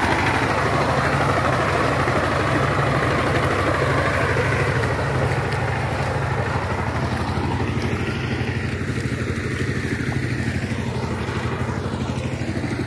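Two-wheel power tiller's single-cylinder diesel engine running steadily with a rapid, even chugging as the tiller works through wet mud, growing slowly fainter as it moves away.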